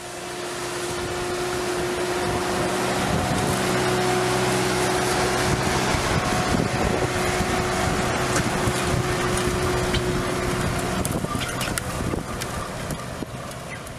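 Sonalika tractor's diesel engine running steadily under load while pulling a disc harrow through dry soil, with wind buffeting the microphone. A steady hum runs through most of it and stops about three-quarters of the way in, followed by a few sharp clicks.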